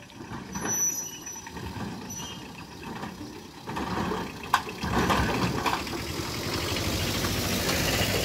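Small Tata mini truck driving over a railway level crossing and passing close by: engine running and tyres rumbling, growing louder as it nears. About four and a half seconds in there is a single sharp knock as it bumps over the rails.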